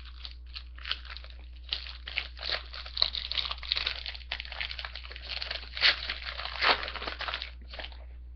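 A hockey card pack's wrapper crinkling and tearing as it is ripped open and handled, with several louder crackles near the middle and toward the end.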